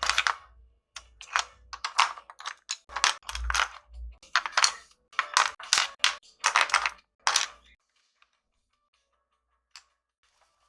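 Colored pencils clicking and clattering against each other as they are handled and sorted: a quick run of small hard knocks that stops about three quarters of the way through, then one faint click near the end.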